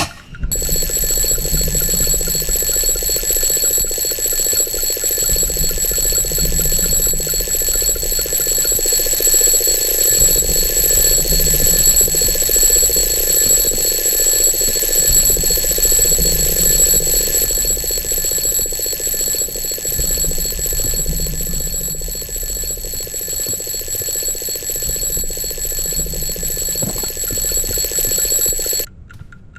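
Alarm clock ringing steadily at a loud level, cutting off suddenly near the end.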